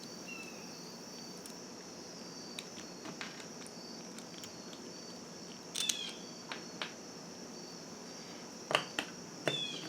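Scattered light clicks and knocks of small parts of a soldering kit being handled and pushed together, with the loudest ones about six seconds in and again near the end. A steady high-pitched whine runs underneath throughout.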